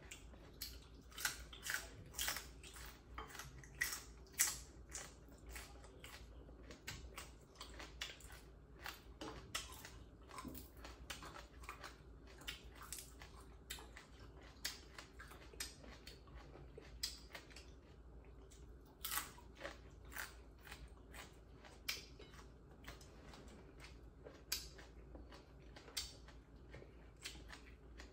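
Close-up eating sounds: two people chewing and biting boiled pork offal and raw vegetables eaten by hand, with irregular crisp crunches and small clicks, sometimes several a second.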